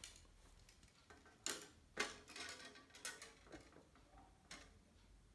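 Faint, irregular clicks and taps as a carbon fishing rod and its sections are handled, the sharpest about one and a half, two and three seconds in.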